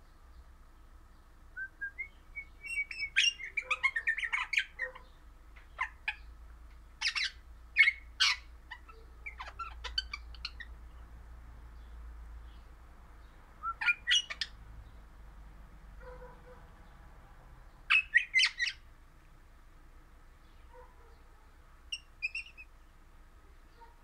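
Crimson rosella (Pennant's parakeet) singing in short bursts of quick chirps and whistles, several clusters with pauses between them.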